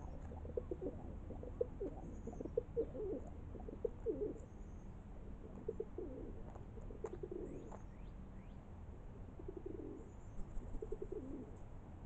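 A pigeon cooing off and on in low, rolling coos, with faint chirps of small birds in the background.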